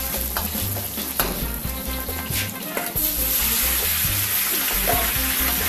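Ginger, chilli and scallion frying in hot fat in a wok over a gas flame, with the metal ladle knocking and scraping against the wok as it stirs. About three seconds in, the sizzle grows louder and steadier.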